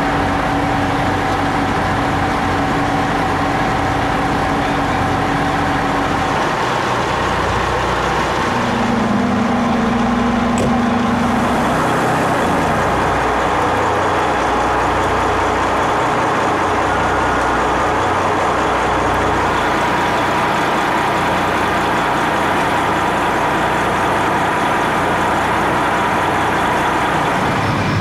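Heavy diesel engines of fire apparatus and other emergency vehicles idling steadily, a constant rumble with held humming tones that shift a few times.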